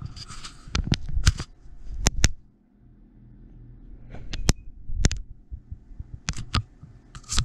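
Irregular sharp clicks and knocks, about a dozen and some in quick pairs, with a short rustle near the start: handling noise close to the microphone.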